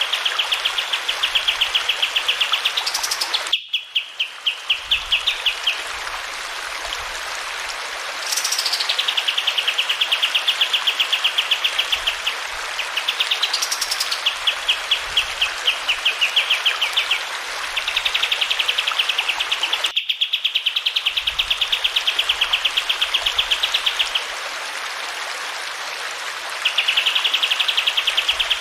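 Kapas tembak songbird singing long, rapid rolling trills of many fast repeated notes, broken by a few rising whistled notes, over the steady rush of running water.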